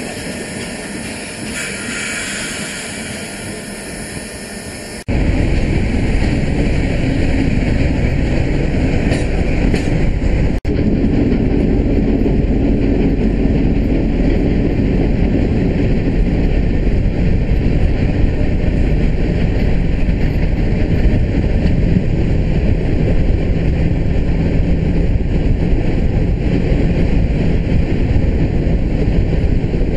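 After a quieter start, the sound jumps about five seconds in to a loud, steady rumble of a steam-hauled passenger train running, heard from a carriage window.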